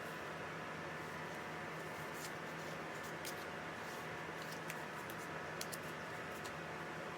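Scattered faint clicks and rustles of paper and plastic items being handled, over a steady background hum.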